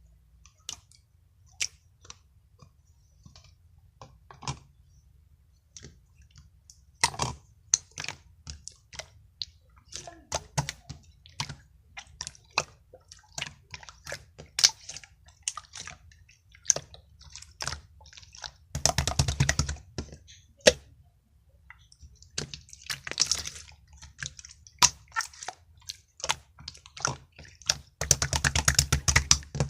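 Slime being played with by hand: irregular sticky clicks and pops, with two longer runs of rapid crackling, one a little past the middle and one near the end.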